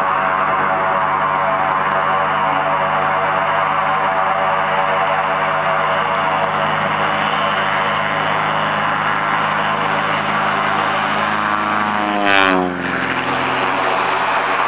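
Cessna 206's six-cylinder piston engine and propeller at full takeoff power, a steady drone. About twelve seconds in it passes close by with a brief rush of noise, and its pitch drops.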